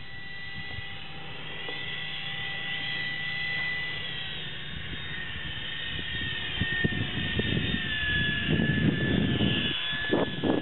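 Electric ducted fan of a foam RC jet whining at a steady high pitch in flight, the pitch sagging slightly after the middle as it passes. A rougher, gusty low rumble comes up underneath near the end.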